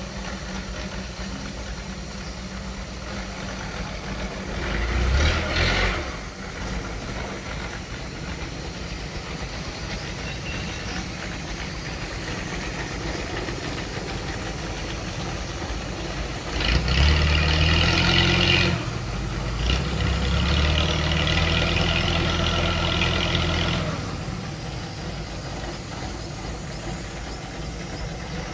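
Boat's stern-mounted long-tail engine running steadily, revving up briefly about five seconds in and again for several seconds from about seventeen seconds in.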